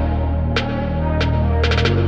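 Background music with a deep bass, sustained held tones and sharp percussion hits about every two-thirds of a second, with a quick roll of hits near the end.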